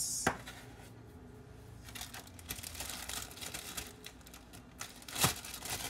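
Items being handled on a kitchen counter: a sharp knock just after the start, then a busy run of light clicks, taps and rustling, and another sharp knock near the end.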